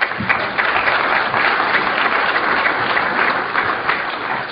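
Audience applauding, a dense clapping of many hands that eases slightly near the end.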